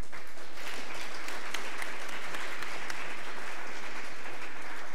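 Audience applauding: dense, even clapping that begins at once and eases off near the end.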